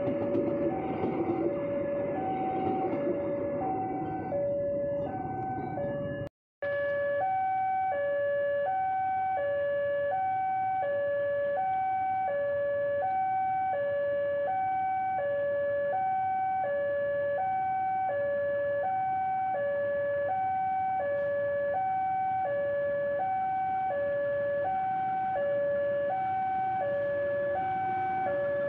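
Railway level-crossing warning alarm: two electronic tones, one high and one low, alternating steadily and without a break. For the first six seconds a passing passenger train's rumble runs under it, then that rumble cuts off suddenly.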